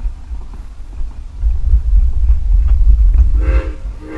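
Narrow-gauge steam locomotive's chime whistle giving a short toot near the end, starting a second toot just before the end, over the low rumble and scattered clicks of the train rolling along the rails.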